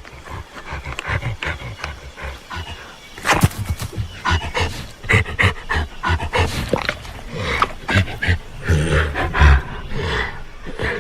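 Disney's Ankylosaurus creature sound effect: an irregular run of animal-like grunts, breaths and growls, with clicky bursts between them and the loudest grunts around the middle and near the end.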